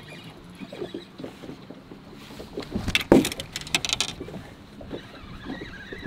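Small waves slapping against an aluminium boat hull, with scattered knocks, clicks and rustling from a fishing rod and spinning reel being handled close to the microphone. A quick clatter about three seconds in is the loudest sound.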